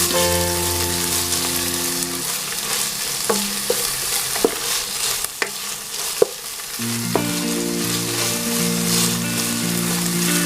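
Food sizzling as it fries in a pan and is stirred, with several sharp clicks of the utensil against the pan in the middle. Background music plays underneath.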